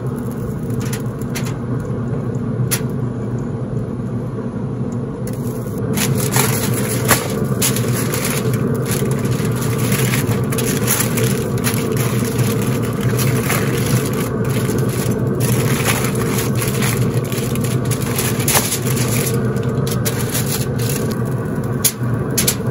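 Aluminium foil crinkling and rustling in bursts as a rack of ribs is wrapped, over the steady hum of a running pellet grill. The crinkling gets busier about six seconds in.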